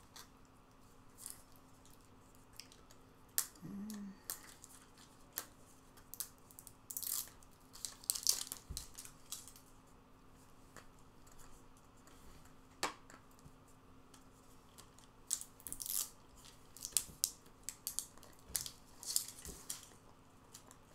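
Small round snack containers being handled and opened on a table: scattered clicks and taps of lids and crinkling, tearing rustles of seals and packaging. A brief low hum comes about four seconds in.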